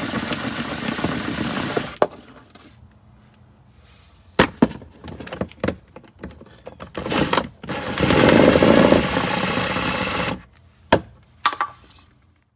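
A power wrench running in two bursts, one of about two seconds at the start and one of nearly three seconds later on, backing out the bolts and nuts under the car. A few sharp metallic clicks and knocks come in between.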